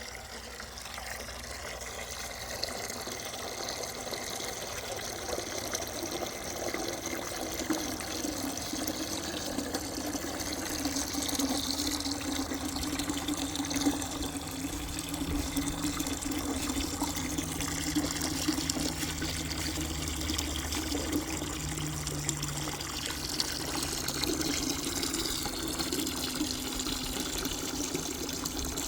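Water running steadily into a five-gallon bucket as it is filled, slowly growing a little louder, with a low steady tone joining the rush several seconds in.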